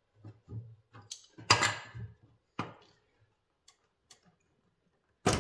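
A series of short clicks and knocks as hoses and their fittings are worked loose from the top of a Nissan VQ35DE's intake plenum. The sharpest, loudest knock comes near the end.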